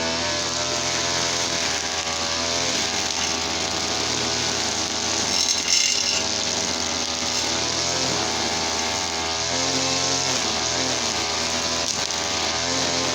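TL33 two-stroke brush cutter engine running, its pitch rising and falling with the throttle, with a brief louder rasp about halfway through.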